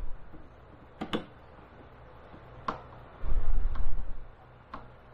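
Light clicks and knocks of flat-pack TV rack panels and cam-lock connectors being handled and fitted: a double click about a second in, then single clicks about once a second, with a low rumbling thud a little past three seconds in.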